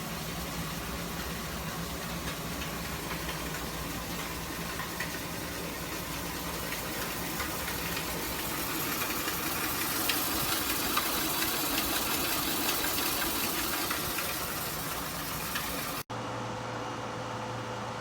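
Frigidaire 50-pint dehumidifier running: a steady rush of fan air over a low compressor hum, the hiss growing a little louder midway. About sixteen seconds in it cuts abruptly to a different, quieter steady hum.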